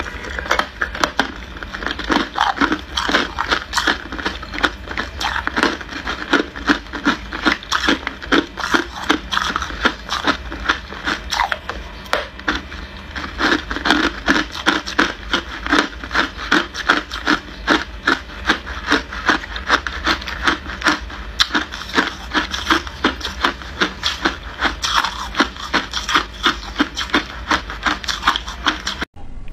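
Hard clear ice being chewed in the mouth: close, loud, rapid crunching and crackling, several crunches a second without pause, breaking off suddenly just before the end.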